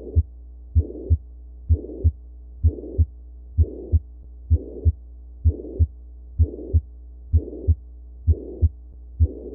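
Auscultated heart sounds of a ventricular septal defect, at roughly 65 beats a minute. Each beat is a pair of short, low thuds, and a harsh whooshing murmur fills the gap between one pair and the next.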